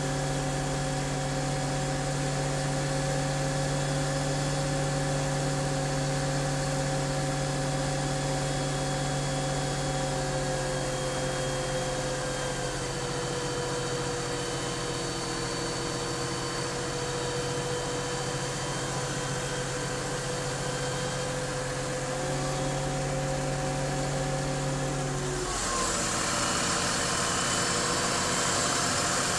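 Steyr tractor's diesel engine running steadily under a towing load, heard from the cab. Its pitch eases down slightly about halfway and comes back up, then the sound changes near the end with more hiss.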